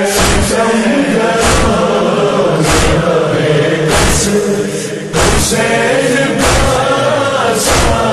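Male mourners chanting a nauha, the Shia lament of Muharram, in unison, with a sharp slap of collective chest-beating (matam) about every second and a quarter keeping the beat.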